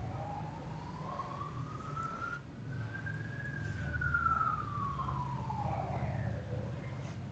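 A siren wailing, its pitch rising slowly for about three seconds and then falling again, over a steady low hum.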